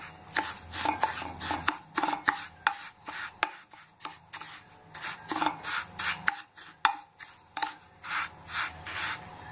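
Plastic spatula stirring dry roasted semolina against the bottom of a glass dish: quick, repeated gritty scrapes, about two to three a second.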